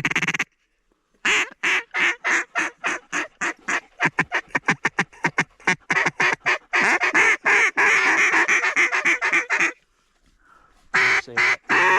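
Waterfowl honking and quacking calls in a rapid run of short notes, several a second, growing into a dense continuous chatter past the middle, breaking off for about a second near the end, then starting again.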